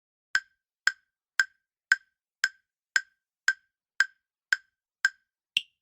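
Countdown timer sound effect: eleven sharp, wood-block-like ticks, about two a second, over silence. The last tick is brighter and higher.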